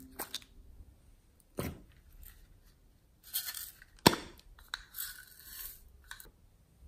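Small plastic containers of slime add-ins being opened and handled: light plastic clicks and rustles, with a sharp plastic snap about four seconds in and short stretches of rattling as a box of loose sequins is shaken.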